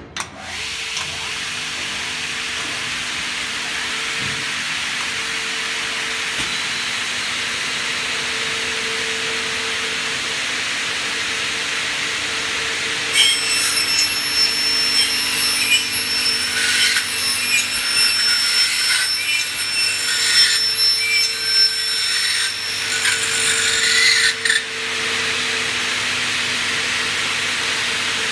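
The milling motors of an aluminium greenhouse-profile glazing machine start up and run with a steady whine. About halfway through, the end-milling cutters bite into the aluminium profiles with a harsh, ringing screech for about ten seconds, then run on freely again.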